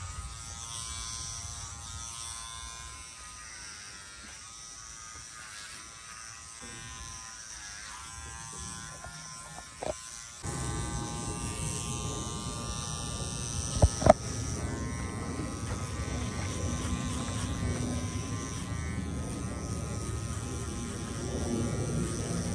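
Electric hair clippers buzzing steadily as they shave a head of hair down to the scalp, louder from about ten seconds in. Two sharp knocks come close together about fourteen seconds in.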